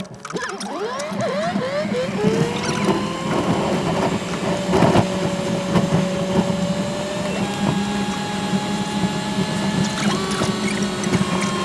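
A vehicle running under way, with a steady low drone and whining tones that glide quickly up and down at first, then hold and step to new pitches.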